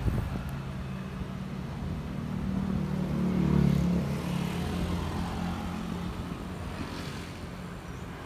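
Small motorbike and scooter engines passing close by: the engine hum swells to its loudest about three and a half seconds in, then eases to a steadier, lower hum as more motorbikes come on.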